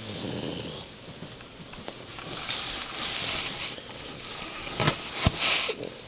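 A terrier mix's noisy breathing close up: three long breaths about two and a half seconds apart. A couple of sharp clicks come near the end.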